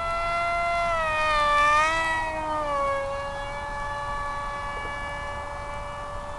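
Electric motor and propeller of an FPV flying wing whining in flight. The pitch rises to its loudest about two seconds in, then drops and holds steady as the throttle eases.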